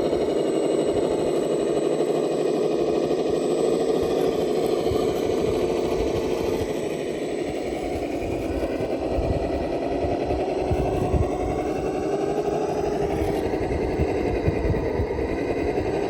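Radio-controlled rock crawler's electric motor and gearbox whining steadily as it drives, with irregular low knocks underneath. The pitch dips briefly about halfway through and then climbs again.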